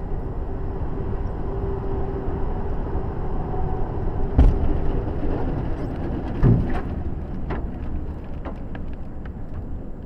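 Dashcam vehicle's engine and road noise, then a sharp loud bang about four and a half seconds in and a second bang about two seconds later as it collides with a flatbed truck's trailer, followed by a scatter of small clicks from flying debris.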